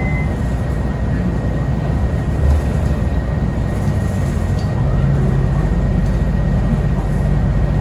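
Cabin noise of a King Long city bus under way: a steady low rumble of drivetrain and road noise, with a faint, steady high tone over it.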